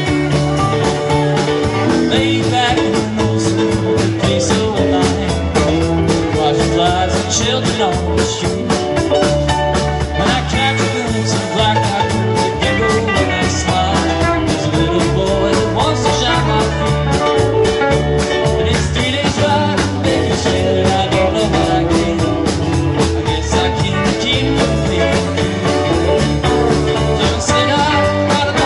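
Rock band playing a steady-beat number with electric guitar, bass and drums.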